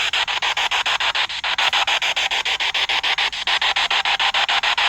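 Spirit box sweeping through radio stations: loud static, chopped into rapid, evenly spaced pulses.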